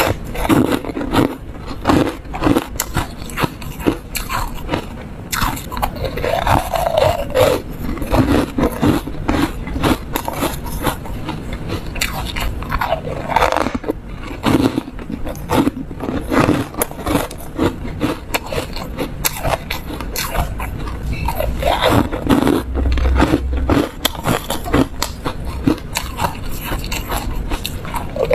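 Close-miked crunching and chewing of yellow foam ice: a dense, uneven run of short crisp crunches as the frozen foam balls break up in the mouth.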